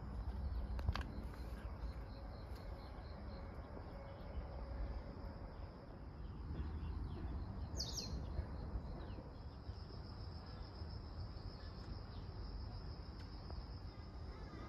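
Outdoor park ambience: a steady high drone of insects over a low rumble, with a short bird call about halfway through. A couple of sharp clicks sound in the first second.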